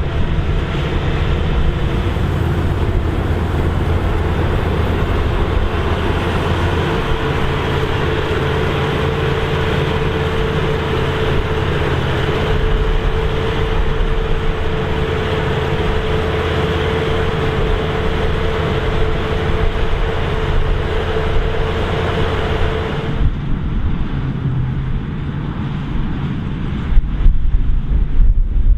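Claas Lexion 770 combine harvesters running under load while harvesting, a steady mix of engine and threshing machinery with a held whine through the middle. Near the end the sound changes to a duller, lower rumble.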